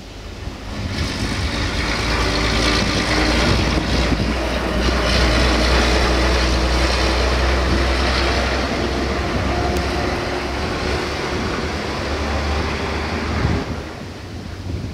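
Diesel truck driving past: its engine and rumble build about a second in, hold loud and steady, and fall away sharply near the end.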